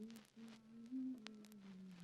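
A person softly humming a slow melody, held notes stepping gently up and down, with a few faint clicks.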